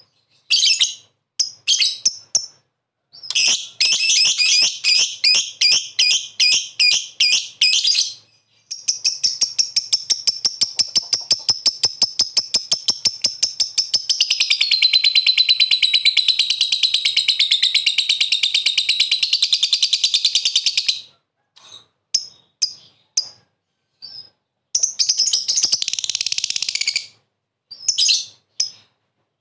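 Lovebird giving short shrill calls, then breaking into the long, fast chattering trill that keepers call "ngekek". The longest trill runs unbroken for about twelve seconds, followed by scattered calls and another short trill burst near the end.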